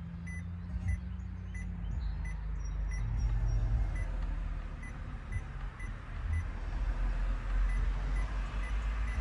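A car's warning chime, such as the door-open chime now played through the newly installed aftermarket radio, beeping faintly and evenly about every two-thirds of a second over the low steady rumble of the car.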